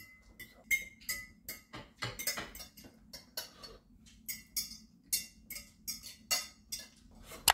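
Cutlery clinking and scraping on porcelain plates at a meal, a quick irregular run of light clicks, some ringing briefly.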